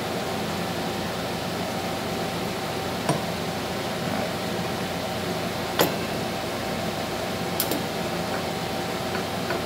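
Steady workshop hum with a faint steady tone, broken by three light clicks of metal transmission parts as the clutch drum is set into the 09G transmission case.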